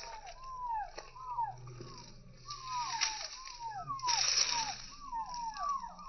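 Domestic chicken chicks peeping: repeated short falling notes, a couple each second, from several chicks at once. A brief rustle comes about four seconds in.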